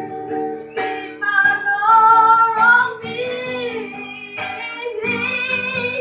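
A young child singing a slow song, holding long notes with a slight waver, over acoustic guitar accompaniment.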